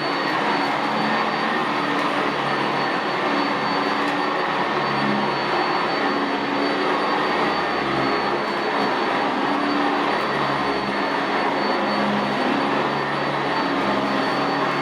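Sanitaire SC679J commercial upright vacuum running steadily as it is pushed over carpet, a thin high whine over the motor noise.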